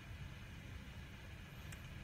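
Low steady background rumble and hiss, with a single faint click from a mechanical keyboard key near the end.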